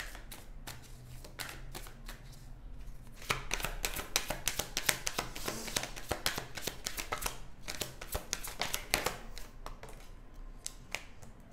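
A deck of tarot cards being shuffled by hand: a quick patter of card-on-card snaps and slides, densest through the middle and thinning out near the end.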